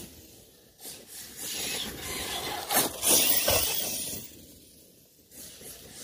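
Arrma Talion RC truggy driving over loose ground: bursts of hissing and scraping from its tyres and kicked-up dirt as it runs past. The loudest pass is about three seconds in; it goes quiet shortly after four seconds, then comes back faintly near the end.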